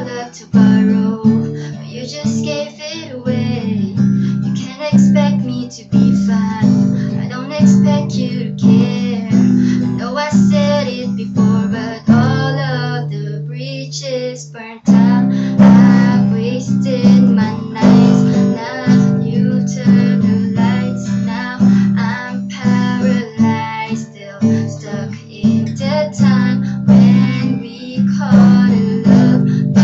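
Acoustic guitar strummed in a steady rhythm, playing the chords of a pop song, with one chord left ringing about twelve seconds in before the strumming starts again.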